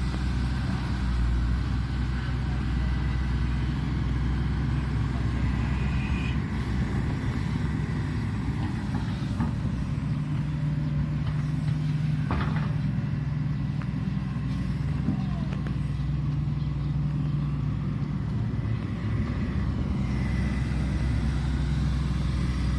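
Matador Shantui ME210LC-1 crawler excavator's diesel engine running steadily as the machine digs mud, its note shifting under load partway through, with a couple of short knocks.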